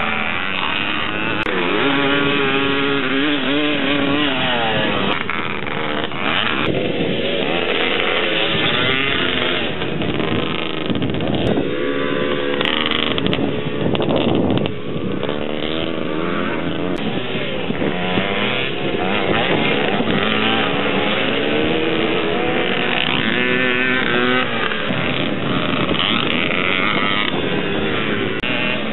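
Pre-1974 air-cooled vintage motocross motorcycle engines revving hard, their pitch climbing and dropping again and again as the bikes accelerate and shift.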